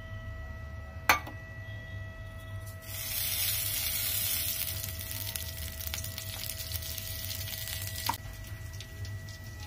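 Hot oil sizzling in a steel kadhai. The hiss starts about three seconds in, is strongest for a couple of seconds, then settles to a lower sizzle. A steady high electronic whine from the induction cooktop runs underneath, with a sharp clink about a second in.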